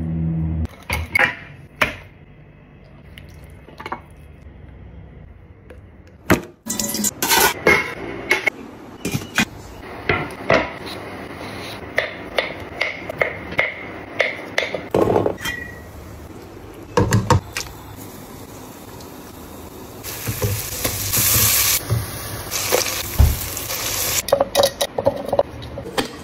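A run of kitchen food-prep sounds: water poured into a glass bowl, a knife cutting potatoes on a wooden board with many sharp knocks, and dishes clattering, with a few seconds of hissing noise near the end.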